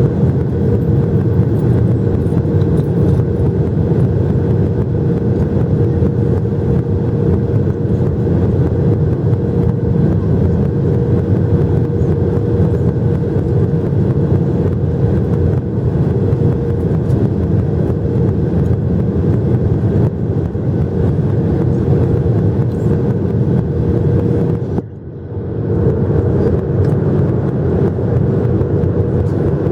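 Steady cabin drone of a Boeing 737-800, the CFM56-7B engines and airflow making a constant low rush with a steady hum running through it. The sound briefly drops away about 25 seconds in, then returns.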